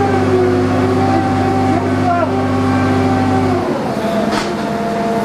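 Crane engine running steadily, then its note changes and drops back about three and a half seconds in.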